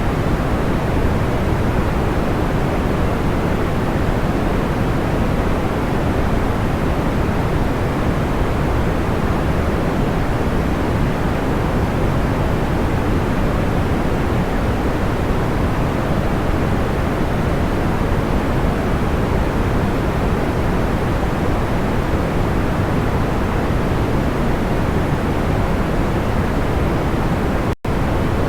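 Steady, soft white noise weighted toward the low end, like a deep even rush, with a momentary dropout near the end.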